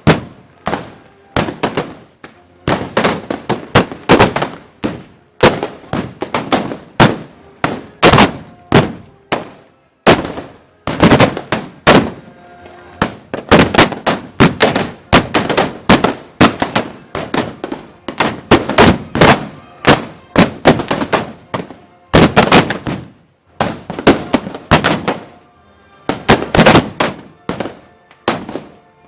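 Black-powder arquebuses (arcabuces) firing in rapid, irregular volleys, the loud shots overlapping in dense clusters with a few short lulls.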